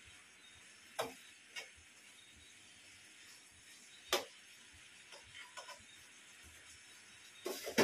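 Kitchen utensils and cookware clinking and knocking now and then, a handful of separate sharp clicks with the loudest about four seconds in and a quick cluster near the end, over a faint steady hiss.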